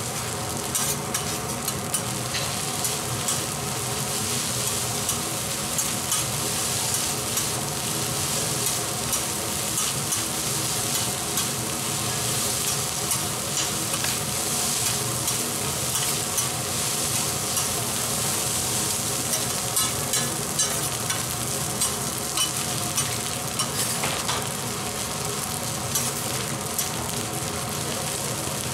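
Fried rice sizzling on a flat-top teppanyaki griddle while steel spatulas scrape, chop and press it, with frequent sharp clicks and scrapes of metal on the hot plate over a steady frying hiss.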